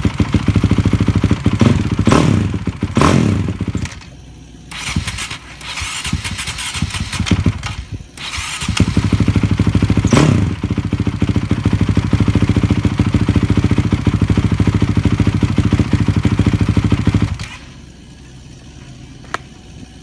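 Honda CRF450X single-cylinder four-stroke engine running on its first start after a rebuild, blipped several times; it sags almost to nothing about four seconds in and again near eight seconds, picks back up, then stops about seventeen seconds in. It runs a little rough, the carburetor still needing adjustment.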